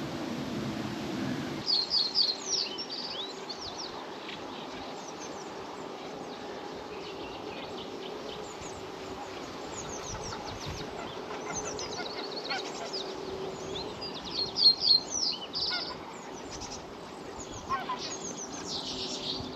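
Wild songbirds singing in short, repeated high chirping phrases, loudest about two seconds in and again around fifteen seconds in, over a faint steady low hum.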